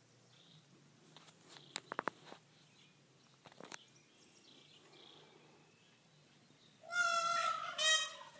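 A peacock howls near the end: one loud call of about a second, then a shorter one right after. A few sharp clicks come a couple of seconds in.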